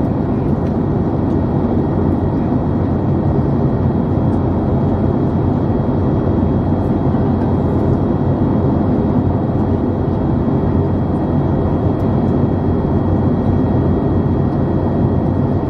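Steady jet airliner cabin noise in flight during the descent: an even rush of airflow and engine drone, with a few faint steady tones above it.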